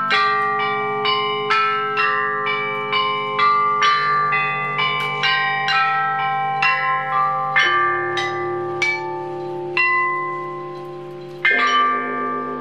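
Bianzhong bronze chime bells and bianqing stone chimes struck with mallets, playing a slow melody of ringing notes about two a second. In the second half the strokes thin out, and a few deeper bells ring on longer.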